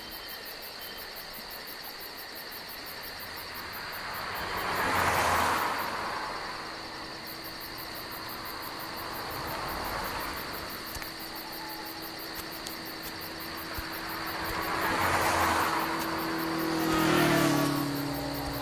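Night roadside ambience: vehicles pass one after another, each a swell of road noise that rises and fades, the loudest about five seconds in and again near the end, over a steady high chirring of crickets.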